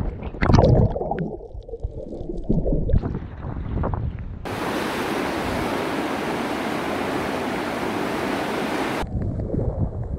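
Seawater splashing and rushing around a camera riding on a surfboard. About four seconds in it gives way to a steady, even rush of surf and wind, and splashing returns near the end.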